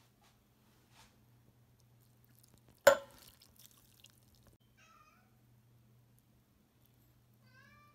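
A single sharp knock about three seconds in, then two short, faint high calls that bend in pitch, one about five seconds in and one near the end, over a faint steady low hum.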